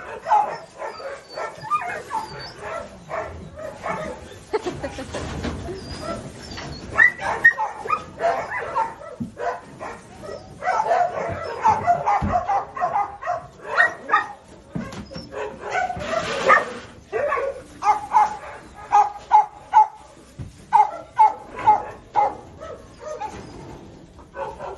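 Puppies yipping and barking, many short high-pitched yips coming in quick runs.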